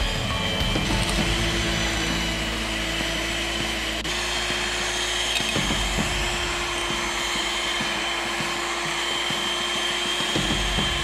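Electric hand mixer running steadily, its twin wire beaters whipping cream with powdered sugar: a constant motor hum with a high whine, rising slightly in pitch about four seconds in.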